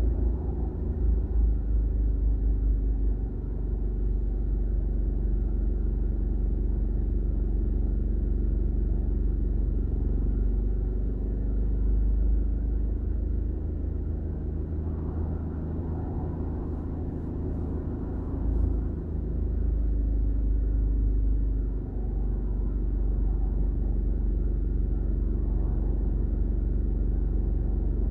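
Road traffic on a multi-lane highway: a steady low rumble of engines and tyres as cars and a small truck pass.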